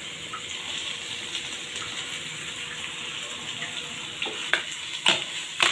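Ground masala paste frying in oil in a pan, a steady sizzle with small crackles, as chopped tomatoes go in. A few sharp knocks near the end.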